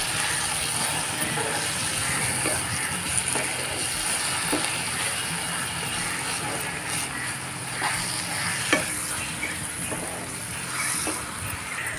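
Silicone spatula stirring and scraping a sautéed mix of gongura leaves, tomato and onion in a nonstick pan over a steady sizzle of frying. Scattered light clicks come where the spatula knocks against the pan.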